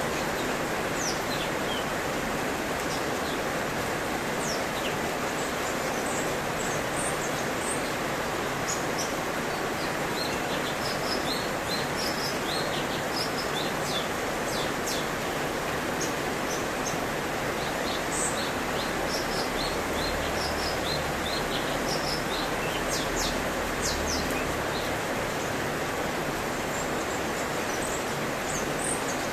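Cucak cungkok singing: a rapid string of short, high chirps and quick whistled notes, densest through the middle. A steady rushing background noise runs under the song and is louder than it.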